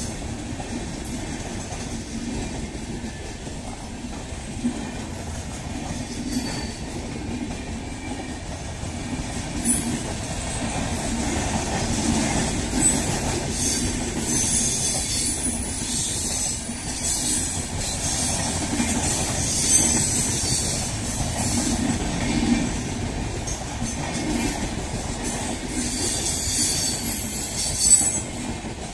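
Indian Railways LHB passenger coaches of an express rolling past at speed: steady wheel-on-rail noise with a few sharp knocks as wheels cross rail joints, and high-pitched wheel squeal coming and going from about ten seconds in.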